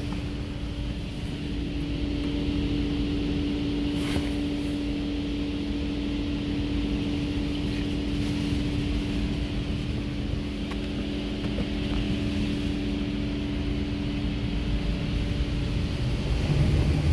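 Ryko Radius HT touchless car wash spraying water over the car, heard from inside the cabin: a steady hiss of spray on the glass over a constant machine hum, with a single click about four seconds in.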